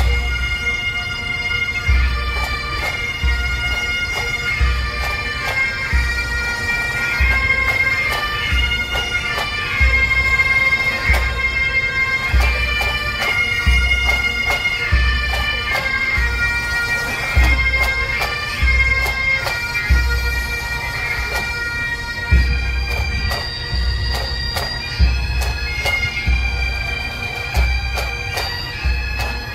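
Bagpipes playing a slow melody over their steady drone, with quick ornament flicks between notes and a low beat about once a second.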